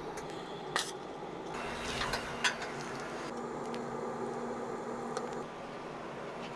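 Light metal clinks and taps as steel frame parts and tools are handled, a couple of sharp ones standing out, over a steady background hum.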